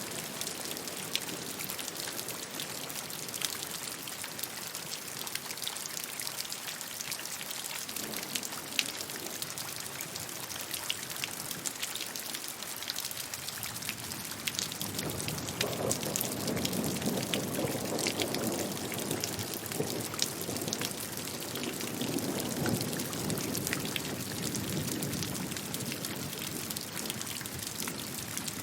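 Steady rain falling, with many separate drops ticking sharply on a hard surface. About halfway through, a deeper rushing swells up and then eases off a few seconds before the end.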